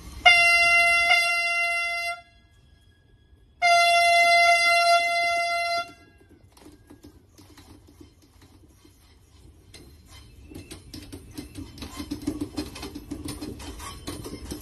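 Horn of an NCRTC RRTS rapid-rail train: two long, steady blasts of about two seconds each. Then comes the rumble of the train rolling past, growing louder toward the end.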